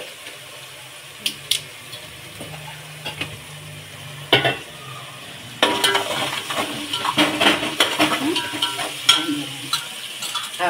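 A spatula stirring and scraping in a cooking pot of masala frying in hot oil, with sizzling. The clatter starts about halfway in; before that there are only a few light clinks over a steady low hum.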